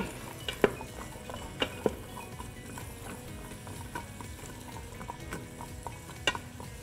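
Chopped onion, celery and carrots sizzling gently in butter and olive oil in an Instant Pot's stainless steel inner pot on the sauté setting while being stirred with a spoon. A few sharp knocks of the spoon against the pot come in the first two seconds and again near the end.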